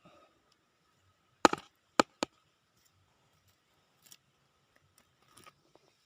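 Three sharp clicks or knocks in quick succession about a second and a half in, the first loudest, then a few faint ticks against near silence.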